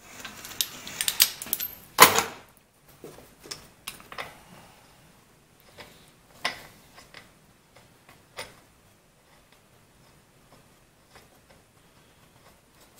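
Sharp clicks and knocks of small tools and plastic parts being handled on a workbench, with one loud clack about two seconds in. Sparser light taps follow, then it goes quiet for the last few seconds.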